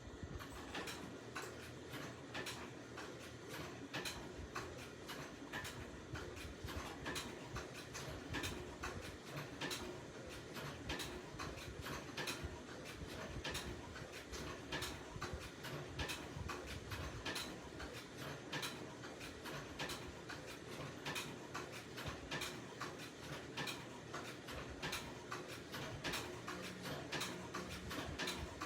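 Sewing machine stitching slowly, each stroke of the needle making a sharp click, about two to three a second in a slightly uneven run.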